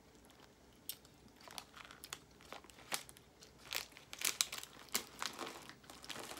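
Jelly bean packaging crinkling as a hand rummages through it: a run of sharp, irregular crackles, sparse at first and busiest in the second half.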